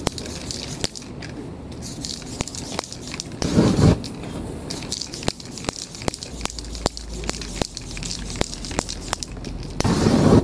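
Aerosol spray paint cans hissing in short sprays, with sharp clicks and taps from work on the paper stencil. There is a loud burst about three and a half seconds in, and another near the end, when the paint spray is lit with a lighter and flares into a sheet of flame.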